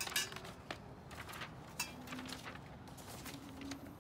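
Handling noise: black metal frame tubes knocking lightly against each other and a sheet of paper rustling, as scattered clicks and rustles, the sharpest just after the start and a little before two seconds in.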